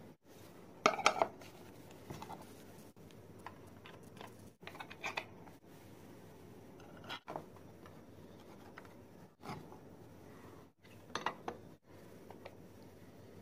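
Brief spells of light metallic clinking and tapping as small brass pieces and tools are handled on a workbench: the loudest about a second in, more around five seconds and again near eleven seconds. A faint workshop hum underneath cuts out abruptly several times.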